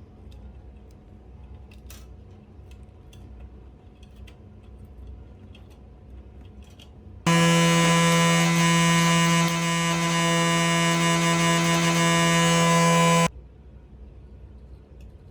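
A loud, steady electric buzz with a low pitch starts abruptly about seven seconds in, lasts about six seconds and cuts off suddenly. Faint clicks come before it.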